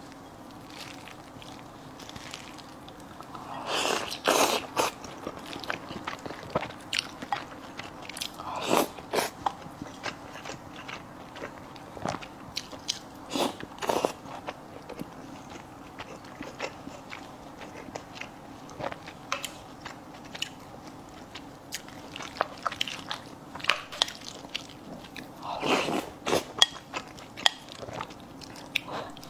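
Close-miked chewing and biting of fish offal and fish roe with rice: a steady run of small wet clicks, with louder clusters of mouth sounds every few seconds.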